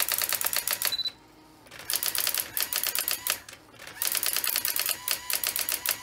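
Brother AX-25 electronic typewriter's daisy wheel printing, a fast run of sharp strikes at about ten a second, in bursts with a short pause about a second in. A brief high beep sounds just as the first burst stops.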